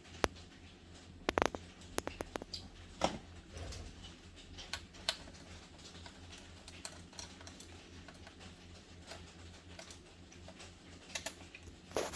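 Scattered light clicks and taps of a screwdriver and small screws against a laptop's plastic bottom case as the screws are taken out, over a low steady hum.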